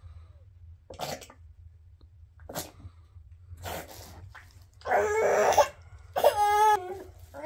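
A baby coughing and fussing in short, separate bursts, with a louder rough cough or fuss about five seconds in and a brief high-pitched cry near the end.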